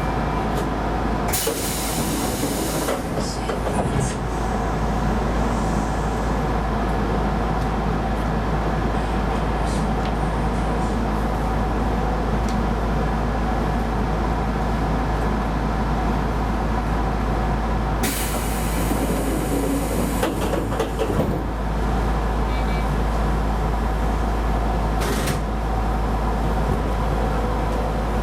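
A Keisei Line electric commuter train running, heard from inside the car: a steady rumble of wheels on rail with a constant whine. Two stretches of louder rushing hiss come, one near the start and one past the middle.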